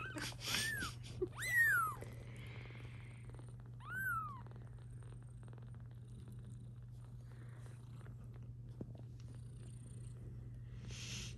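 Newborn kittens mewing in short, high-pitched squeaks, four cries in the first four and a half seconds, over a steady cat purr. A brief rustle near the end.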